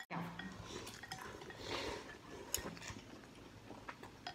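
Quiet eating of noodle soup: slurping, with a few light clicks of chopsticks and spoons against porcelain bowls.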